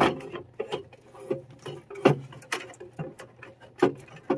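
Irregular light clicks, taps and rattles of hands working at the wiring and plastic connectors of a gas furnace's inducer motor.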